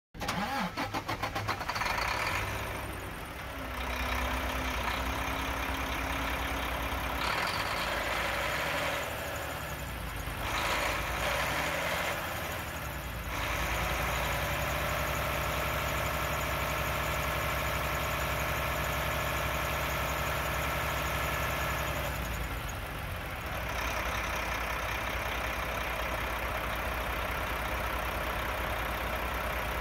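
Mack 10.8-litre six-cylinder turbo diesel in a truck tractor, cranking and catching at the start, then revved several times. It is held at a raised speed for several seconds and drops back to a steady idle.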